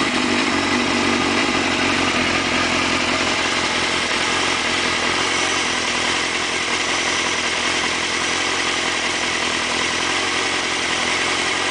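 2002 Suzuki GSX-R600's inline-four engine idling steadily with a rattle, a noise at idle that the owner cannot diagnose and wants a mechanic's help with.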